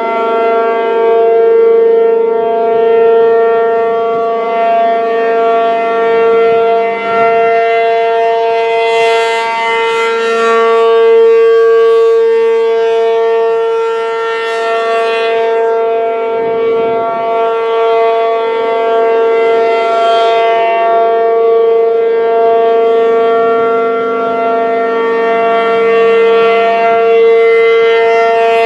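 P-50 outdoor warning siren stuck on, sounding one steady, unbroken alert tone that swells and dips in loudness but keeps a level pitch. It is running continuously because of a malfunction, assumed to be a welded relay.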